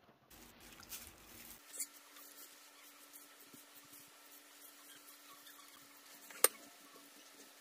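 Faint kitchen handling sounds: a wire whisk mixing egg and flour batter in a glass bowl, then quiet rubbing as chicken pieces are handled in the batter over a faint steady hum. One sharp click about six and a half seconds in is the loudest sound.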